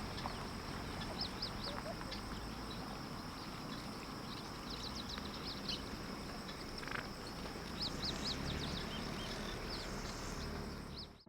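Bush ambience: wild birds giving short, repeated chirps in quick runs over a steady high-pitched insect drone. It all cuts off suddenly near the end.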